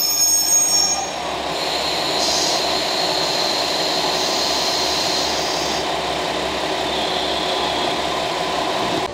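KiHa 47 diesel railcars standing with their engines idling, a steady hum that is a little louder in the first second and then holds even.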